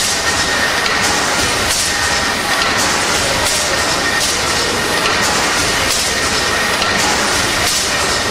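Triple-expansion steam pumping engine running steadily: a continuous mechanical clatter with a swish of steam that repeats roughly every half second, over a thin steady whistle.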